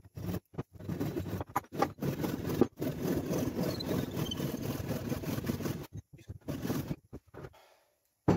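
A power saw running and cutting through a piece of wood, its motor drone broken by several sudden short gaps.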